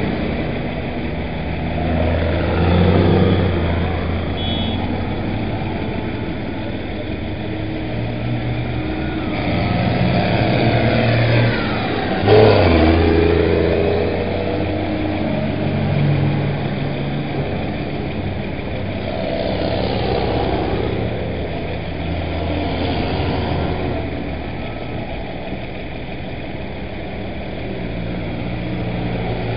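A procession of farm tractors, among them a Case IH Maxxum 135, driving past one after another, their diesel engines rising and falling in pitch as each goes by, with the loudest pass about twelve seconds in.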